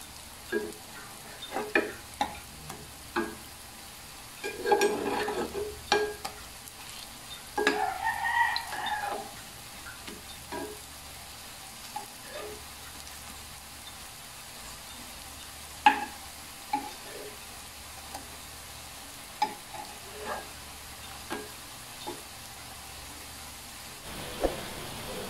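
Potato pancakes sizzling in shallow hot oil in a non-stick frying pan, with a slotted spatula clicking, tapping and scraping against the pan as the pancakes are flipped. The two longest scrapes come about a fifth and a third of the way in.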